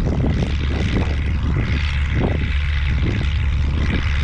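Strong wind buffeting the microphone: a steady, loud, low rumble with gusty rustling over it.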